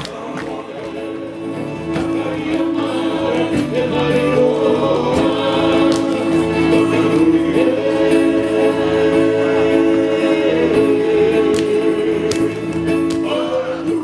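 Māori group singing in harmony for a poi dance, with long held chords from several voices.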